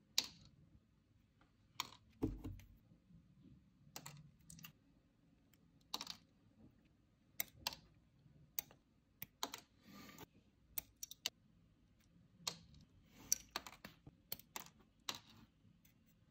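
Light, irregular clicks and taps of tweezers against a small carved wooden model as tiny parts are fitted and the model is handled, with one duller knock about two seconds in.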